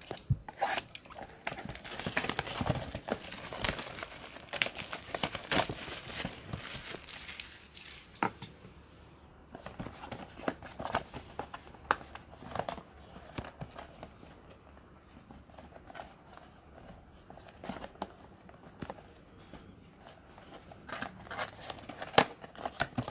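Cellophane shrink wrap crinkling and tearing as it is peeled off a trading-card box, for about the first eight seconds. After that come softer scattered taps and scrapes of fingers on the cardboard box, louder again near the end as the perforated top flap is worked open.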